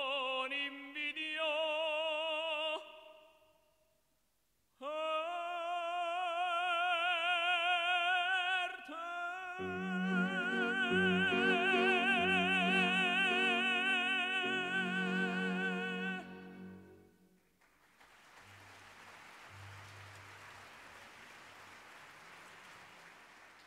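Operatic tenor singing with wide vibrato, with a pause of about two seconds between phrases. About ten seconds in, piano and string quartet come in under a long held high note, and the music ends on a final chord. Audience applause follows.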